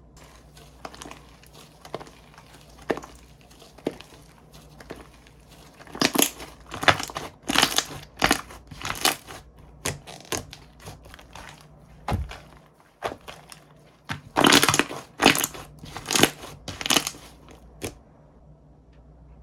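Slime being squeezed and pressed by hand, giving irregular crackling, squelching noises. The bursts come in two louder flurries, about six seconds in and again about fourteen seconds in, and ease off near the end.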